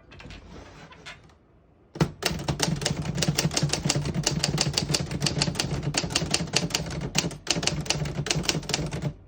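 1961 Underwood Olivetti Studio 44 manual portable typewriter typing a sentence: fast, even keystrokes, several a second, starting about two seconds in and briefly pausing near the end. The keys strike cleanly without sticking or skipping.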